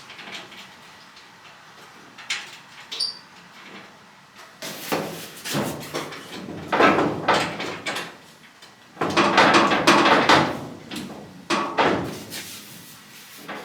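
A loose steel truck fender being shifted and pressed into place by hand, sheet metal scraping, rattling and clunking against the body in long bouts, after a light metallic clink about three seconds in.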